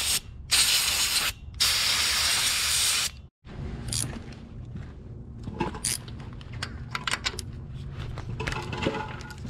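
Compressed-air blow gun hissing in loud blasts, stopping briefly twice, as dirt is blown off a Ford 8N tractor's cylinder head around the spark plugs. After a break about three seconds in, a socket ratchet clicks quietly as a spark plug is worked loose.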